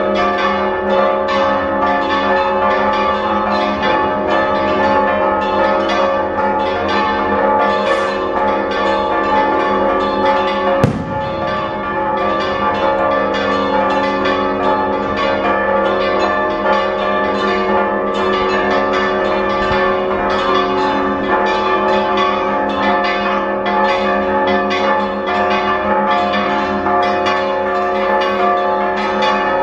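Church bells in a stone bell tower ringing a festive repique: several bells struck in a fast, continuous rhythm, their tones overlapping. One sharp bang stands out about eleven seconds in.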